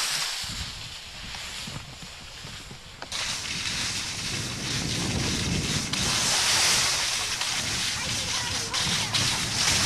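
Rushing noise of skiing downhill: wind buffeting the camcorder microphone mixed with skis sliding on snow, jumping louder suddenly about three seconds in.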